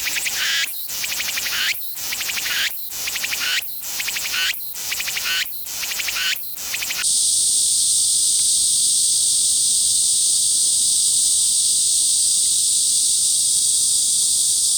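Cicadas singing. First, a Meimuna mongolica (쓰름매미) repeats a high phrase about once a second, seven times. About seven seconds in, it gives way to the continuous, unbroken high buzz of a Platypleura kaempferi (털매미).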